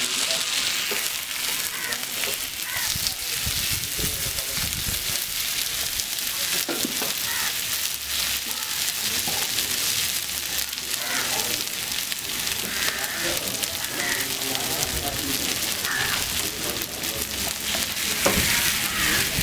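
Fish frying in hot oil: a steady, dense sizzle with many small crackles.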